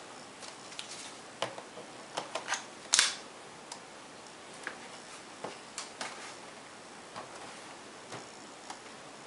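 Scattered light plastic clicks and knocks from a laptop's casing being handled, with a sharp click about three seconds in. The laptop is turned over and set down on a glass desktop.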